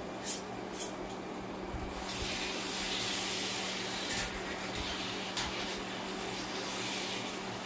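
Food frying in a hot pan on the stove, a steady sizzle that grows louder about two seconds in. There are a couple of light clicks near the start.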